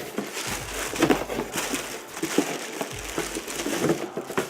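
Packaging crinkling and rustling in irregular bursts, with small knocks, as a keyboard is lifted out of its box.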